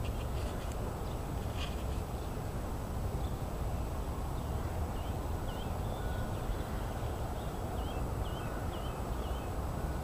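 Steady low outdoor rumble, with a small bird's faint, short chirps repeated several times in the second half.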